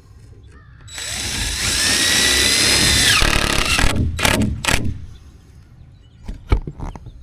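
Power drill driving a screw into a wooden board: the motor whines for about two seconds, its pitch sinking as it slows and stops, followed by a few short knocks.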